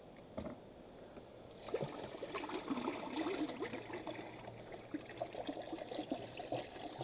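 Contents of a motorhome cassette toilet tank pouring out of its spout into a drain, gurgling and trickling unevenly from about two seconds in. A light click comes just before, near the start.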